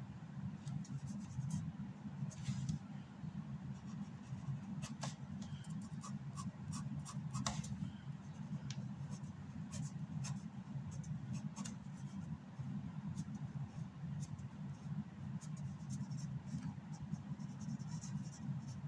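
Fine-tipped ink pen scratching on paper in short, irregular hatching strokes, with a few sharper ticks as the nib touches down, over a steady low hum.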